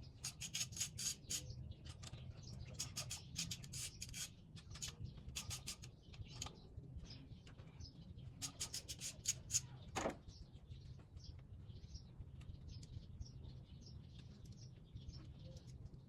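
Faint, irregular scraping and rubbing strokes over a low steady hum, with one sharper click about ten seconds in.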